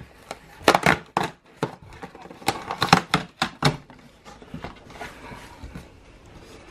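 A taped cardboard shipping box being opened: packing tape tearing and cardboard flaps pulled back, as a run of sharp rips and scrapes over the first few seconds, then quieter rustling.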